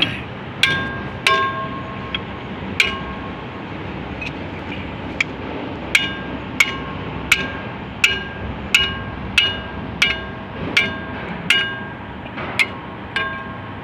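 Hammer striking a bulldozer's steel drive sprocket to work it loose. About fifteen metal-on-metal blows ring out, a few at first and then, after a short pause, a steady run of about one and a half a second.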